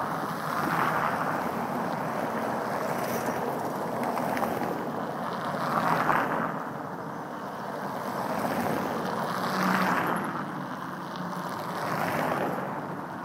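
Vehicles passing on the road one after another, each a swell of engine and tyre noise lasting a few seconds, with wind on the microphone.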